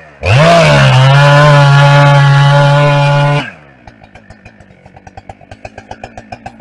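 Two-stroke chainsaw revved quickly up to full throttle and held there for about three seconds. It then drops abruptly back to idle, a run of quick pops.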